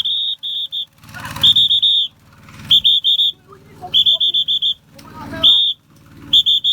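A shrill whistle blown in short, repeated blasts, in quick groups of three to five with a single longer blast between them, about once a second. Brief shouts come in the gaps.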